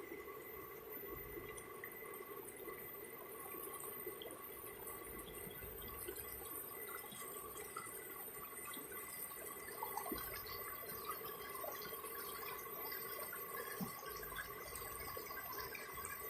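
River water flowing steadily, with many small gurgles and trickles.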